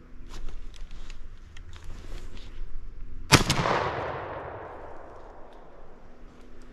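A single shotgun shot about halfway through, its report echoing and fading over about a second and a half. Before it, a few light clicks and rustles.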